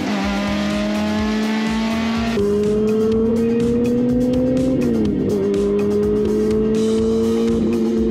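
Honda K24 four-cylinder race car engine pulling hard, its pitch climbing steadily in gear, dropping briefly at an upshift about five seconds in, then climbing again.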